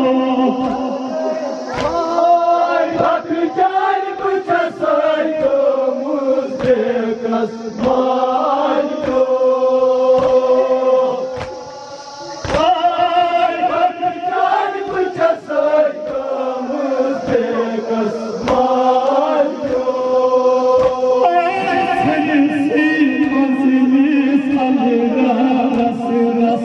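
Male voices chanting a Kashmiri noha, a Shia mourning lament, over a loudspeaker. Short thumps of chest-beating (matam) keep time about once a second, and a strong one comes after a brief lull about halfway through.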